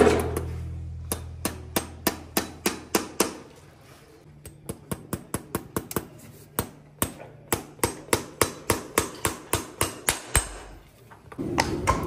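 A farrier's driving hammer tapping horseshoe nails through a new shoe into a horse's hoof wall. Quick runs of sharp metallic taps come about three or four a second, with a short pause about three seconds in and another near the end.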